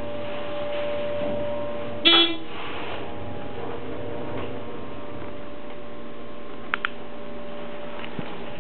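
ThyssenKrupp hydraulic elevator car travelling up with a steady hum and a faint steady tone. About two seconds in, a short, buzzy electronic chime sounds as the car reaches the third floor. Two short clicks come near seven seconds.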